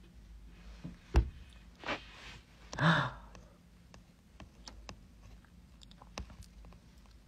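Quiet room tone broken by a sharp knock about a second in, a short breath, then a brief wordless vocal sound from the streamer, followed by a few faint clicks.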